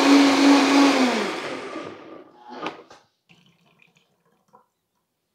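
Countertop blender running at full speed on roasted corn and jalapeños, switched off about a second in, its motor falling in pitch as it spins down. A click follows, then faint sounds of the thick purée being poured through a funnel into a glass bottle.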